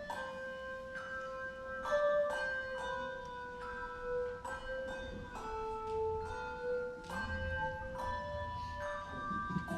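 Handbells ringing a slow melody: notes are struck about once or twice a second and left to ring, so they overlap.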